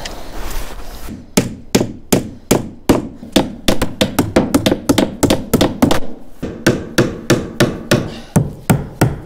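A hammer nailing wooden planks in place: a quick series of sharp strikes, about three a second, starting about a second in.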